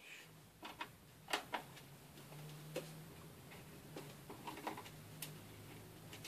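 Light, irregular clicks and ticks of a small screwdriver turning out a screen-hinge screw on an Asus X51R laptop, the sharpest about a second and a half in, over a faint steady low hum.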